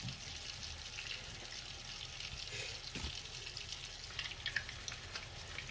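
Two beef steaks sizzling in hot oil in a nonstick frying pan: a steady hiss with fine crackles, and a soft knock about three seconds in.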